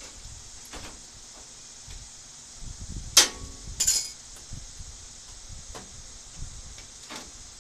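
Sharp metallic clinks of tools and fastener hardware being handled against a truck's metal grille. The loudest comes about three seconds in with a brief ring, and a second follows under a second later, with a few light ticks of handling around them over a steady high hiss.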